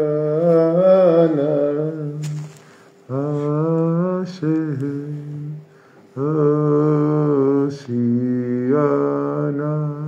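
A man singing a slow wordless melody, a niggun, in four phrases of a couple of seconds each with short breaks between them.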